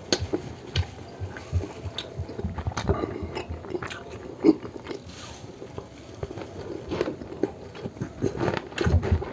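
A person chewing and biting food close to the microphone: irregular wet mouth clicks and smacks with crunchy bites.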